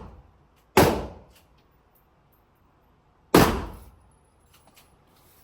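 Two gunshots about two and a half seconds apart, each a sharp crack with a short echoing tail.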